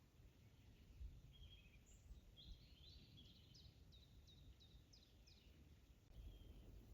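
Faint songbird singing, a short run of quick high chirps that ends in a string of brief falling notes, over a low wind rumble on the microphone.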